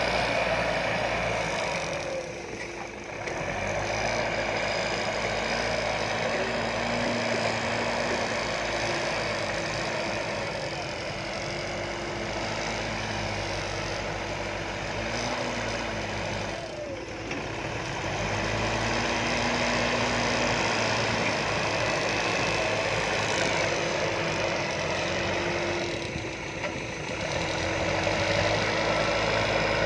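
Diesel engines of backhoe loaders and an excavator running under working load. The engine note rises and falls as the machines work, and the sound dips briefly three times: about three seconds in, around seventeen seconds and near twenty-six seconds.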